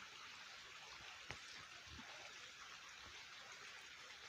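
Near silence: faint steady room hiss, with one faint click about a second in.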